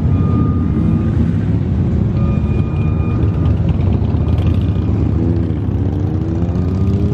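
Vehicle engine running steadily with a low rumble, while a high steady tone sounds on and off. Near the end an engine's pitch rises as it revs up.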